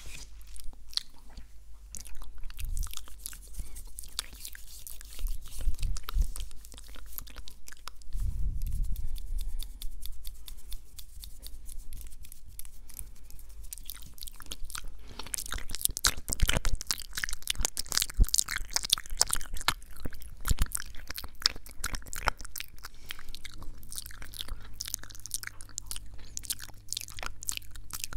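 ASMR mouth sounds close to the microphone: rapid wet clicks and smacks of lips and tongue in a dense crackle, with louder clusters now and then.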